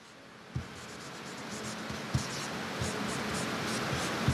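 Felt-tip marker writing Chinese characters on a stack of paper: scratchy pen strokes, with three soft knocks spread through it.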